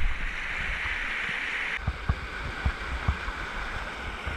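Rushing stream water, cutting off abruptly a little under two seconds in, followed by a series of low, uneven thuds of footsteps crossing a bridge over the stream.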